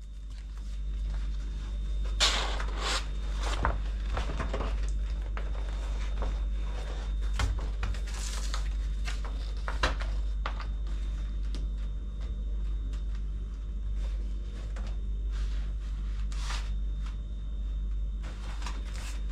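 Rustling and scraping of adhesive vinyl sticker wallpaper being handled and pressed onto a refrigerator, in short irregular bursts over a steady low hum.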